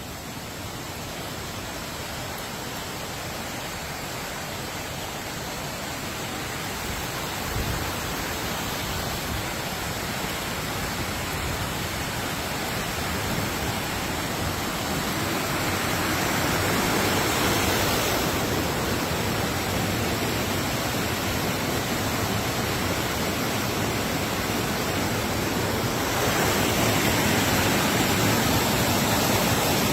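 Fast-flowing river water rushing through a rocky gorge: a steady, even rush that slowly grows louder, stepping up again near the end.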